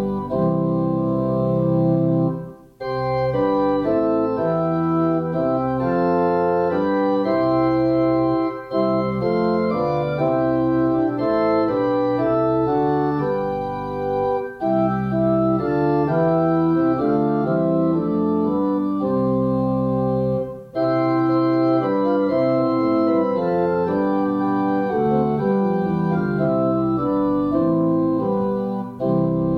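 Organ playing slow, sustained chords that move from one to the next, breaking off briefly between phrases a few times.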